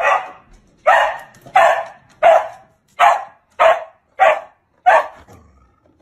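A dog barking over and over, about seven sharp barks in an even rhythm, one every two-thirds of a second or so, stopping a second before the end.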